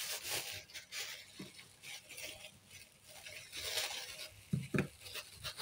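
Costume jewellery and beads clinking as a pile is sorted by hand, then a thin clear plastic bag crinkling as it is handled and cut open with scissors.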